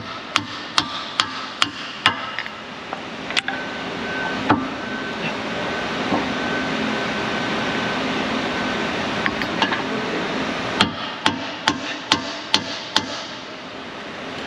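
Hammer tapping on a 27 mm socket held against the inner race, driving the wheel hub home into a new rear wheel bearing. Sharp metallic knocks come in two runs of about two a second, one at the start and one a few seconds before the end, with a couple of single knocks and a steady hiss between them.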